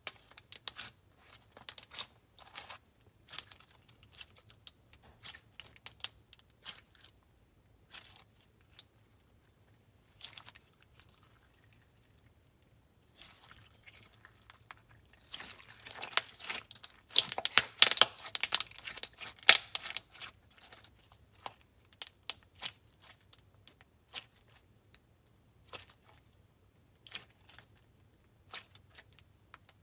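Clear slime with fishbowl beads being squished and poked by hand, making scattered crackles and crunchy clicks, with a dense run of crackling in the middle.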